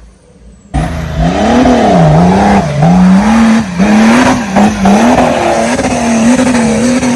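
Off-road vehicle engine revving hard, its pitch swinging up and down several times, then holding high and steady. It cuts in abruptly under a second in.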